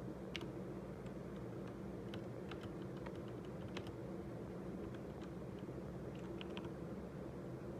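Typing on a Cosmic Byte computer keyboard: keys clicking at an irregular pace, a few strokes at a time, over a steady low hum.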